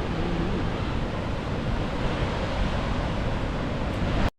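Ocean surf breaking, a steady wash of noise mixed with wind buffeting the microphone. It cuts off abruptly near the end.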